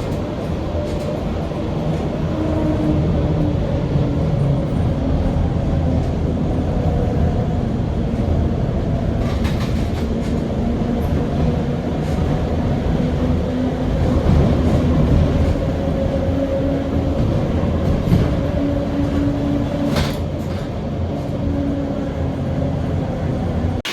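Heritage tram running on its rails: a steady rumble with a humming tone that shifts in pitch, and a few sharp clicks.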